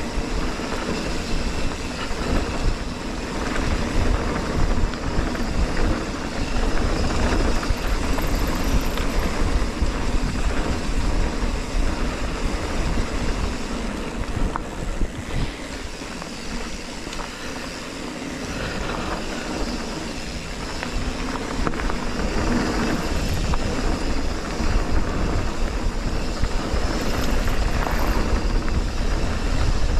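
Mountain bike riding down a rough trail: wind buffeting the microphone with a heavy rumble, over a constant clatter of tyres and the bike rattling, easing off a little in the middle before picking up again.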